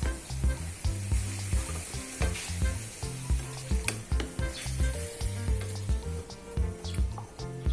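Pan of string beans and ground meat sizzling as it is stir-fried, with a steady hiss and a few sharp clicks as it is stirred. Background music with a steady beat plays underneath.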